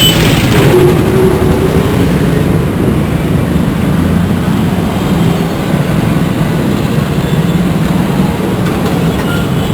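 Loud, steady low rumble of heavy traffic passing close by, with a horn note dying away at the very start.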